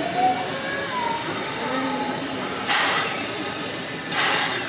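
JNR Class C56 steam locomotive blowing off steam in two short loud hisses, about three seconds in and again near the end, over a steady background hiss.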